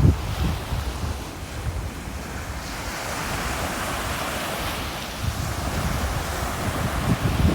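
Ocean surf washing, with a swell of hissing wash about three to five seconds in, while wind gusts on the microphone.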